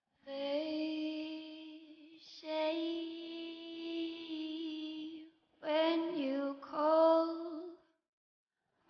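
A high voice singing long held notes with no accompaniment, in a few phrases separated by short pauses, the last two phrases shorter.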